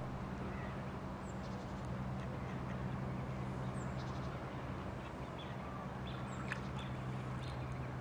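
Mallard ducks quacking a few times while they feed on the water, over a steady low hum.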